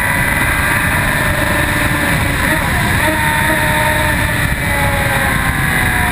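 2004 Yamaha YZF-R1's inline-four engine running hard at track speed, its pitch climbing, breaking off and sliding as the revs change, over heavy wind rush on the bike-mounted microphone.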